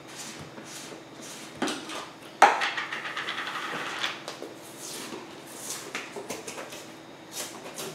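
A plastic tub of protein powder being opened by hand: clicks as the screw-on lid is worked loose, a sharp snap about two and a half seconds in followed by a second or so of scraping and crinkling at the tub's mouth, then lighter handling rustles.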